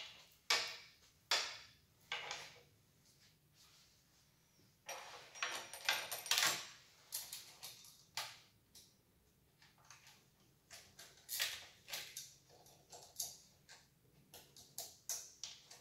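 Steel saw chain being handled and fitted around a chainsaw guide bar: the links clink and rattle in short, irregular runs, with a busier clatter about five seconds in.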